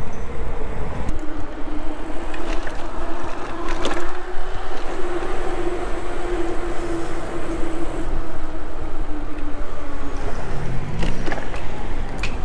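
Riding noise on an e-bike: wind rumbling over the camera microphone and tyres rolling on wet pavement. A steady low hum runs through most of it, and a brief rising tone sounds near the end.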